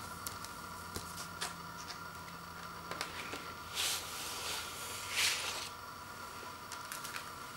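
Paper inner sleeve being handled with light ticks and rustles, then a vinyl LP sliding out of it with two short swishes, about four and five seconds in.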